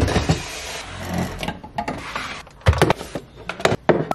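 Kitchen appliances, a stand mixer and a blender among them, set down and slid across the wooden floor of a cabinet: a run of sharp knocks, with a sliding rumble about a second in.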